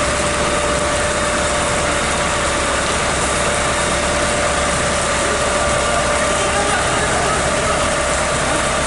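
A steady engine hum under an even, constant rushing hiss, as a jet of flame is played onto a burning wasp nest in a tree.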